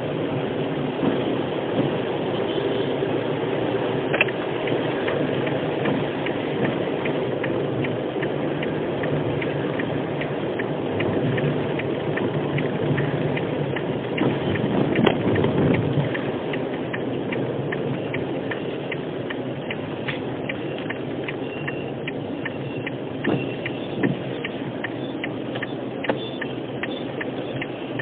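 Inside a car driving in the rain: steady engine and road noise, with raindrops ticking on the windshield and roof. The engine and road noise grows louder for a moment about halfway through.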